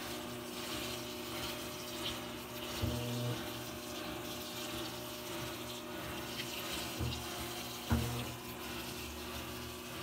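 Mabe top-load washing machine running: water rushes into the tub over a steady machine hum. A low hum swells briefly every few seconds, and there is a single knock near the end.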